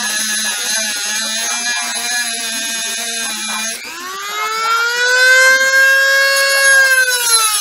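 Corded rotary tool with a cut-off wheel working on a steel bracket, its motor whining at a steady, lower pitch under load. A little under four seconds in, the tool is lifted off the metal and the whine climbs to a higher free-running pitch, then drops again near the end.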